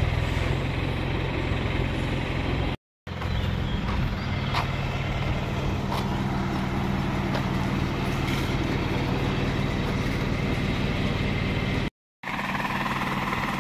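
Lorry engine running with a steady low drone, cutting to silence twice for a moment.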